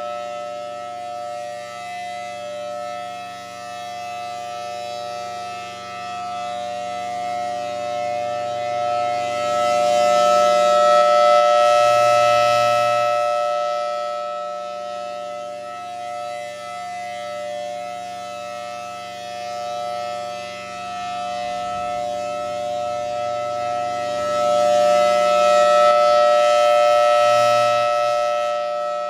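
Federal Signal Thunderbolt 1000BTSB outdoor warning siren sounding a steady unbroken tone, the full alert signal. As its rotating head swings past, the sound swells louder twice, about fourteen seconds apart, around a third of the way in and again near the end.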